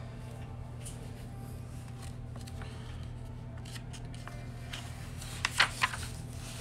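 Sketchbook page being turned: a quick cluster of three sharp paper rustles and flaps about five and a half seconds in, over a low steady hum.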